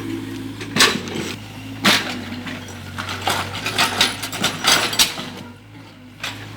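Mini excavator running with a steady low engine hum, over which come sharp metallic knocks and clatter: two single knocks, then a rattling run of several about halfway through.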